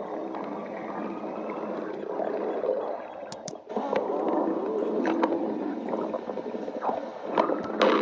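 Stomach growling: long gurgling rumbles that waver up and down in pitch, broken by a short gap a little under halfway through.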